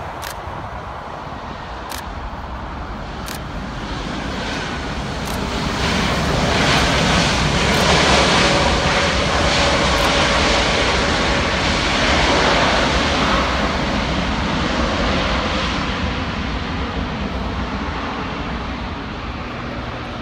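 Boeing 777-200ER's GE90 jet engines during the landing rollout: a jet rumble and whine that swells as the airliner rolls past, peaks for several seconds, then slowly fades as it slows down the runway.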